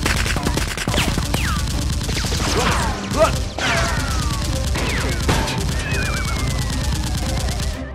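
Rapid automatic gunfire, shots packed close together without a break, with falling whistles of rounds flying past laid over it. These are dubbed gun sound effects standing in for the Nerf blasters.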